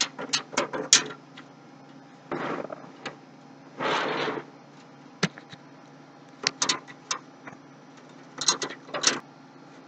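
Thin metal computer-case I/O shield being pressed into the case's rear opening: scattered sharp clicks and snaps of sheet metal, with two short rushing noises.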